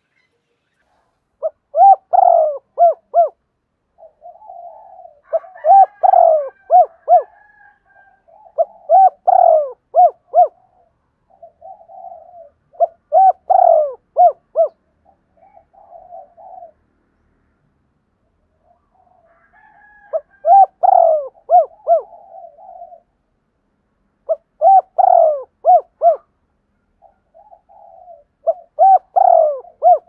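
Spotted dove cooing: a repeated phrase of four or five short coos, one louder than the rest, about every four seconds, with softer low coos between the phrases and a short pause about halfway through.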